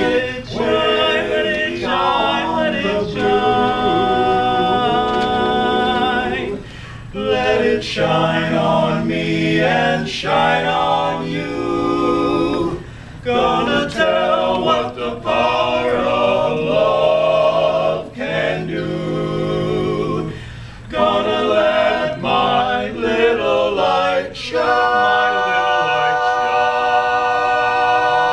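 Barbershop quartet of four men singing a cappella in close harmony, in phrases broken by short breaths, then holding one long sustained chord near the end.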